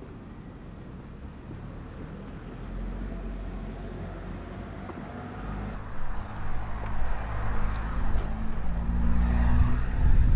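Car engine running in street traffic: a low rumble that grows louder in the second half and is loudest near the end.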